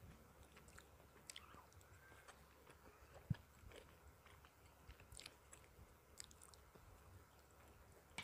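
Faint close-up chewing of soft food, tender chicken in coconut curry with rice cake, with small wet mouth clicks; a single low knock about three seconds in.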